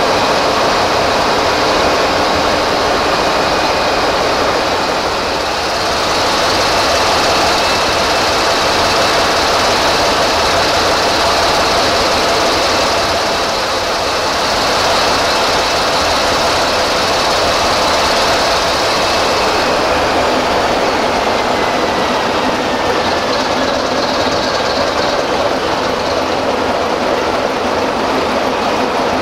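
Sulzer 12LDA28 twelve-cylinder turbocharged diesel engine running steadily, heard loud and close from inside the locomotive's engine room. About twenty seconds in, a faint high whine slides down in pitch.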